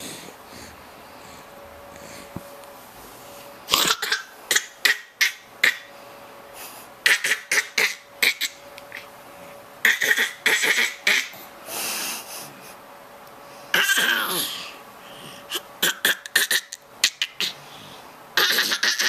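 A baby's odd laugh: strings of short, breathy bursts with little pitch to them, like quick huffs, starting about four seconds in and coming back in clusters every couple of seconds.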